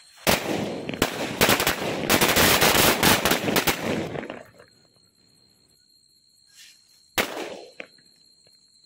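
A Shri Krishna 100-cracker firecracker string (ladi) going off in a fast, continuous run of loud bangs for about four seconds. After a pause comes a small pop, then one last loud bang, as the final crackers burst separately.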